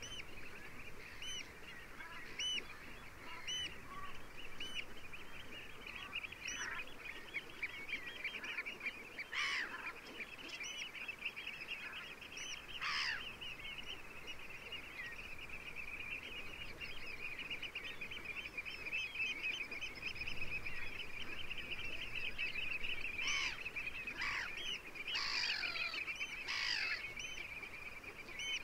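A large flock of coastal waterbirds, geese among them, calling all at once in a dense, unbroken chatter, with louder single falling calls standing out over it now and then.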